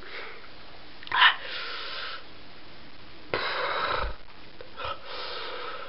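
A man's sharp sniff about a second in, then hissing, wheezy breaths, the loudest and longest some three and a half seconds in: gasping against the burn of strong soy sauce in his mouth.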